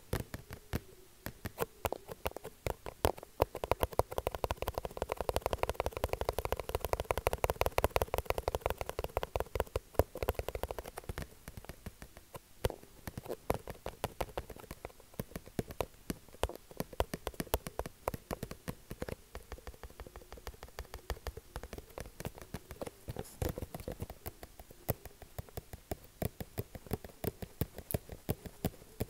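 Rapid, continuous tapping, many quick uneven taps a second, louder between about three and eleven seconds in and lighter afterwards.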